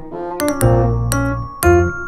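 Background music: a light keyboard tune of separate, sharply struck notes over a low bass line.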